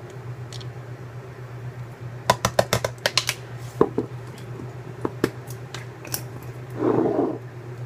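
Light clicks and taps of spice jars and their lids being handled on a kitchen counter: a quick run of clicks a little over two seconds in, a few single taps after it, and a short rustle near the end, over a steady low hum.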